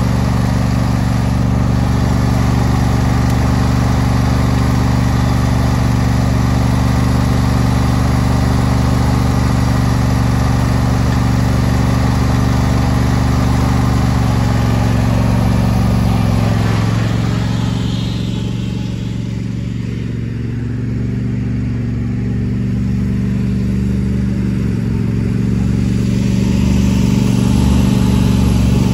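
John Deere S120 riding mower's V-twin engine running steadily up close. A bit over halfway through the sound changes and drops somewhat as the mower moves off, then grows louder again near the end.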